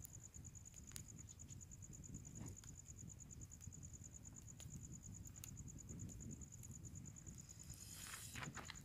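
Night insects trilling steadily: a fast, high-pitched pulsing chorus, faint, with a few soft clicks and a brief rustle near the end.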